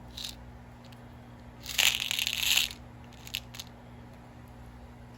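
A packet of small spacer beads being handled: a crinkling rattle of about a second, starting about two seconds in, with a few light clicks before and after it.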